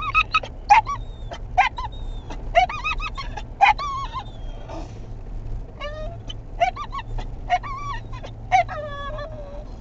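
A dog making squeaky, honk-like whining yelps: short calls that bend up and down in pitch, often two or three in quick succession, repeated all through, over a steady low rumble.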